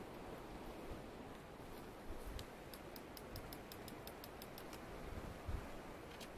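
Fishing reel on a beachcaster ticking in a quick, even run of small clicks, about six a second, starting about two seconds in and lasting a couple of seconds, as the rod is set in the tripod rest. A faint steady hiss lies under it.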